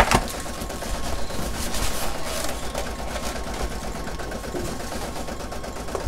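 Plastic packaging bags crinkling and rustling as they are handled, with a sharp knock right at the start.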